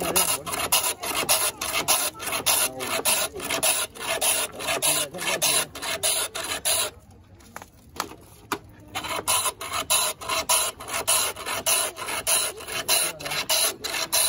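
Block of ice scraped back and forth over the blade of a hand ice-shaving plane, a rhythmic rasp of about two strokes a second, shaving ice for a Thai shaved-ice dessert. The strokes pause for about two seconds midway, then resume.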